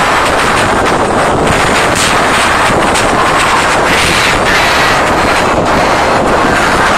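Concert crowd screaming continuously, so loud that it overloads a phone's microphone into a steady, distorted wash of noise.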